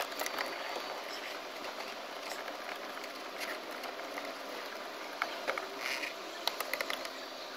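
Faint scattered clicks and scrapes of a Torx screwdriver working a screw out from under the VW Golf 4 instrument cluster, over a steady hiss.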